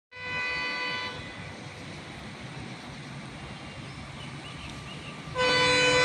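Horn of a WDM diesel locomotive: a short blast at the start, a low rumble after it, then a much louder blast that starts near the end and carries on.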